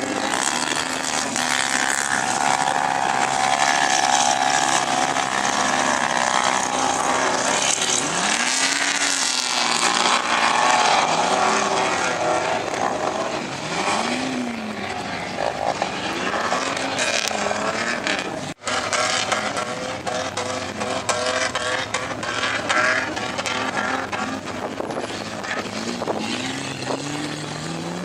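4x4 engines revving hard on sand dunes, the revs repeatedly rising and falling as the vehicles climb and power through the sand. The sound drops out for a moment about two-thirds of the way through.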